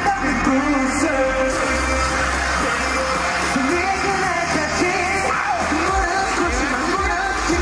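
Live K-pop song played loud through an arena sound system, singing over a heavy bass beat, heard from within the audience.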